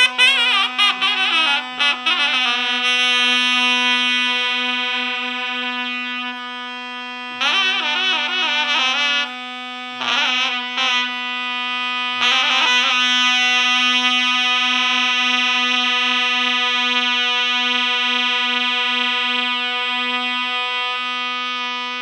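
A kaba zurna and a second reed pipe play a slow free-rhythm bozlak without drum. One holds an unbroken low drone while the other plays phrases of fast ornamented trills and runs that settle into long held notes. The last long note fades near the end.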